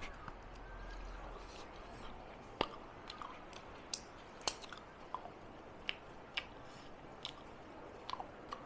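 Chewing food close to the microphone: a string of short, irregular mouth clicks and crunches.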